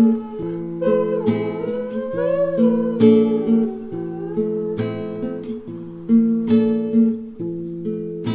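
Background music led by strummed acoustic guitar chords, with a wavering melody line gliding over them in the first few seconds.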